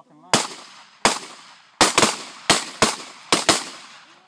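Pistol shots from several shooters firing on the line: about eight sharp reports at uneven spacing, some in quick pairs, each with a short echo tail.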